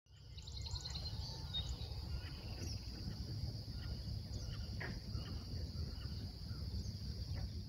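Outdoor nature ambience: a steady, high-pitched insect chorus, with a quick run of chirps near the start and a few short bird chirps, over a low rumble.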